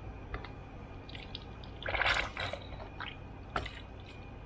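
Oil splashing out of a removed forklift hydraulic cylinder in short bursts as the cylinder is handled, the loudest burst about two seconds in, with a few light metallic clicks.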